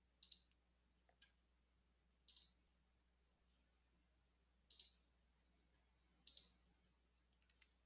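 Near silence broken by four faint, short computer mouse clicks spaced a second or two apart, made while switching a screen share to a web page.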